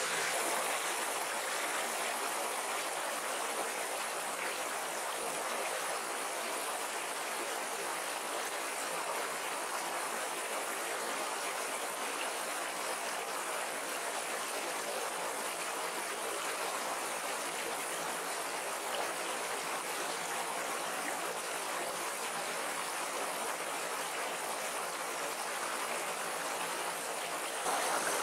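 A small, shallow rocky stream flowing over stones: a steady rush of running water.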